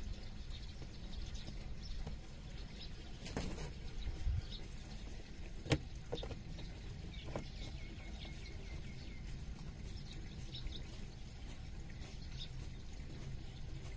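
Birds chirping in the countryside: scattered short high calls, with a quick run of repeated notes about seven seconds in, a sharp click near the middle, and a steady low rumble underneath.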